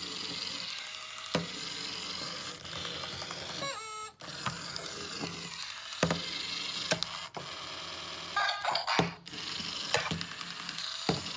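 Battery-powered Zhu Zhu Pets toy hamster's small electric motor whirring as it scoots across a wooden desk, with sharp clicks and knocks every second or so as it rolls and bumps about. A brief electronic squeak from its voice chip sounds about four seconds in.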